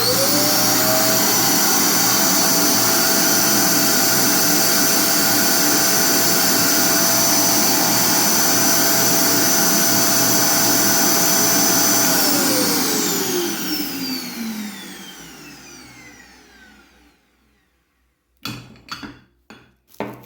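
Vacuum-forming machine's suction motor switching on with a quick rising whine and running steadily, drawing the heated acetate sheet down over the plaster model. About twelve seconds in it is switched off and winds down, its whine falling away over several seconds. A few short knocks near the end.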